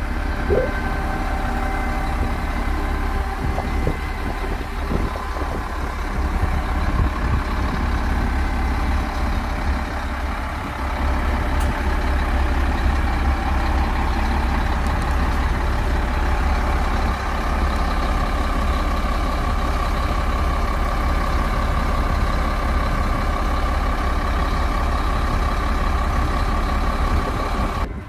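Heavy diesel engines of Doosan wheel loaders running steadily during the recovery of a loader stuck in mud, with a deep, constant rumble. A steady higher tone joins in a little past halfway.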